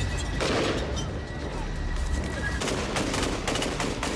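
Rifle gunfire in a firefight: a shot about half a second in, then a fast string of shots from about two and a half seconds in.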